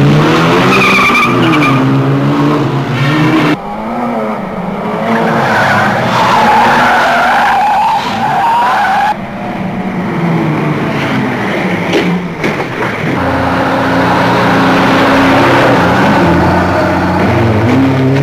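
Car engines revving hard up and down through the gears, with tyres squealing in bursts near the start and again in the middle. There is a short sharp knock about twelve seconds in, and a steadier engine run toward the end.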